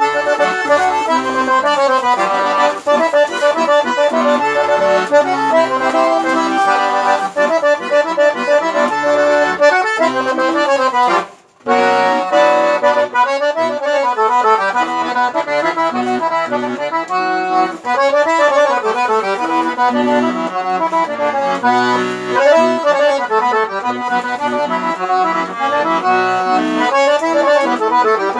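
Accordion (sanfona) playing a tune. Bass notes sound under the melody for the first ten seconds or so. The playing breaks off for a moment about eleven seconds in, then carries on.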